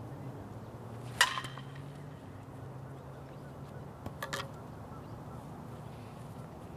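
Softball bat hitting a pitched ball once about a second in, a sharp ping that rings briefly. Two fainter knocks follow a few seconds later.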